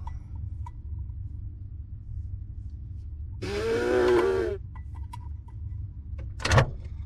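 A man's wordless, drawn-out vocal sound, like a groan, lasting about a second midway, over a steady low hum. A sharp knock follows near the end.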